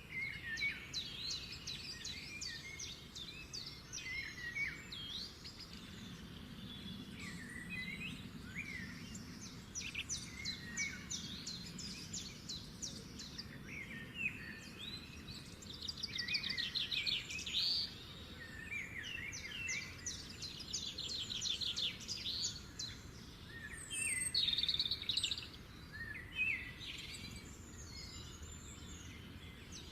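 Several birds chirping and singing over one another, with short chirps and runs of fast repeated trilled notes throughout.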